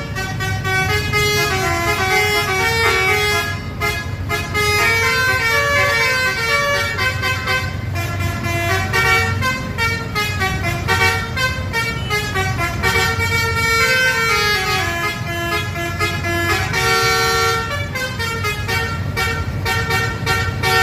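Indonesian bus 'basuri' telolet horn playing a long tune of stepped notes, several pitches at once, with runs of notes rising and falling. A steady low rumble from the bus engine sits beneath it.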